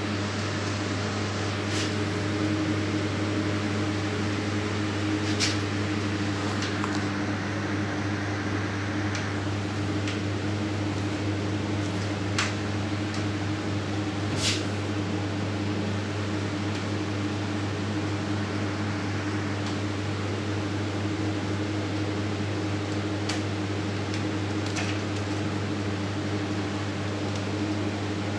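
Steady electric hum of a refrigerated chiller's cooling unit, fan and compressor running, with a few light clicks scattered through.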